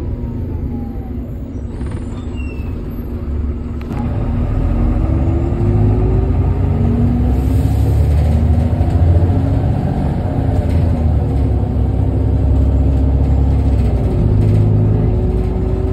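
Irisbus Agora L articulated city bus's diesel engine pulling under acceleration: about four seconds in it gets louder and its note climbs steadily, then drops at a gear change near the end and starts climbing again.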